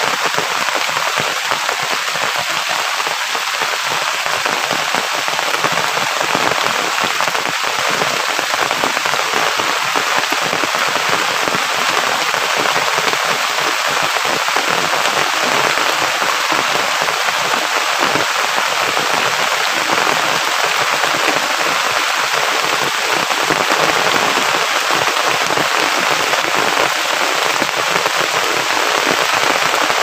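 Heavy rain falling steadily: a dense, even hiss of countless drops with no letup.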